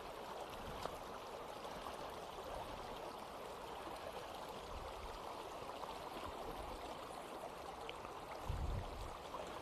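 Small stream running: a steady, even rush of flowing water, with a brief low bump near the end.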